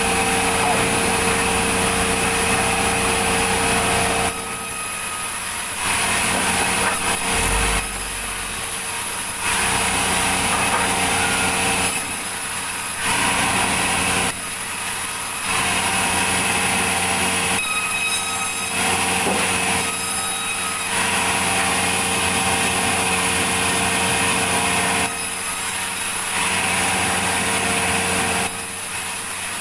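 Sawmill machinery running steadily, a loud hum with a few held tones. Several times it drops quieter for a second or so.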